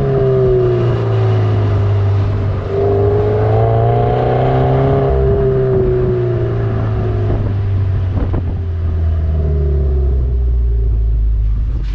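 Subaru BRZ's flat-four engine running through an HKS Legamax Premier cat-back exhaust, with a steady low exhaust note whose pitch rises and falls with the revs, around three to five seconds in and again near eight seconds.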